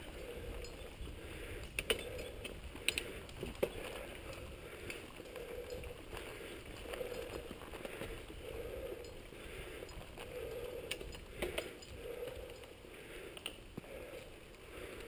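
Mountain bike being ridden over a dirt singletrack: tyre noise and drivetrain rattle, with a few sharp knocks in the first few seconds and a soft pulse repeating a little faster than once a second.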